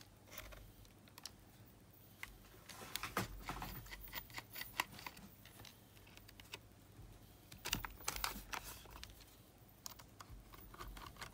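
Faint scattered clicks and taps of a small precision screwdriver working the tiny case screws out of a Sony WM-GX822 cassette Walkman's metal shell, coming in bunches about three seconds in and again about eight seconds in.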